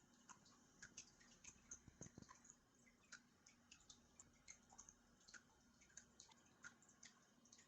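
Near silence: room tone with faint, irregular small ticks, a few a second.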